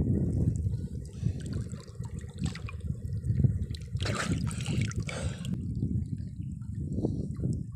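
Shallow water sloshing and splashing around a person wading and working in it, with a louder splash about four seconds in.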